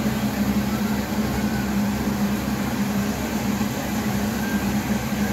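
Steady low electrical motor hum, such as a fan's, with an even hiss behind it.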